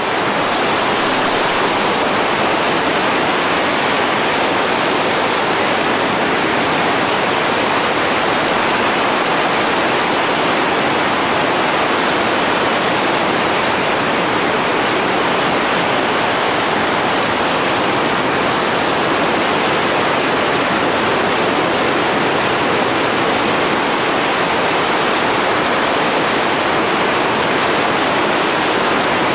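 Whitewater rapids rushing steadily, a dense, unbroken noise of churning water pouring around boulders.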